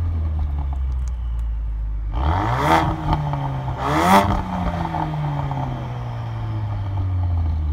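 Ford Focus RS Mk3's 2.3-litre turbocharged four-cylinder engine heard at the exhaust, idling and then revved twice, about a second and a half apart, before the revs ease slowly back down to idle.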